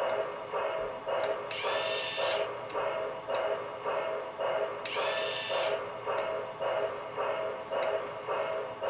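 Electric motor and gearing of a toy crane running, a steady hum with a regular pulse about two and a half times a second. Twice, about a second and a half in and again about five seconds in, a hiss with a rising tone cuts in for under a second.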